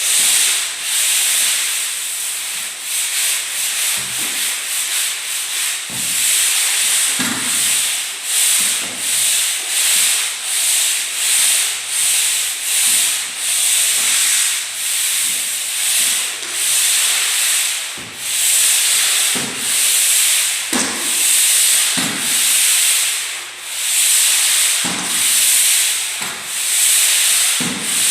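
Pole sander with a fine-grit pad rubbing over a painted drywall wall in steady back-and-forth strokes, about one a second, with light pressure: a between-coats scuff sanding to knock down burrs and dirt specks.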